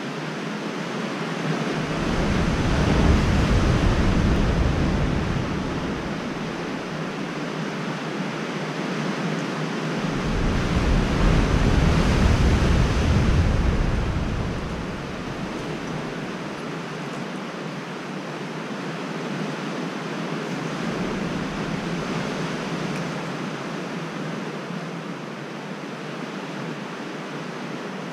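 Steady rush of sea surf and wind, swelling louder about two seconds in and again about ten seconds in, each swell lasting about four seconds with a deep rumble of wind buffeting the microphone.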